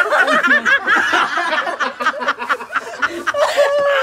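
Several people laughing and chuckling together, their voices overlapping.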